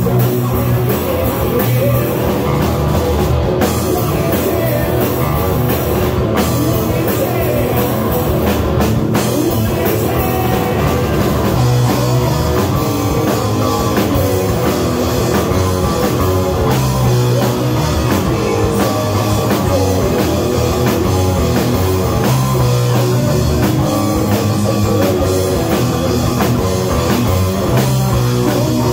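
Live rock band playing: electric guitar, electric bass and drum kit together at a steady, loud level.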